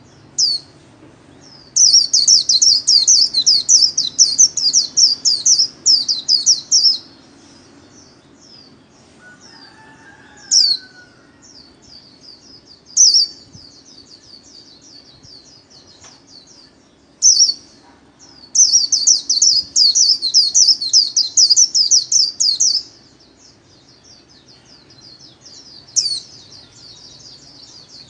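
White-eye (vành khuyên) singing its rapid, high-pitched warbling 'líu' song in two long bouts of about five and four seconds, with single sharp call notes scattered between them.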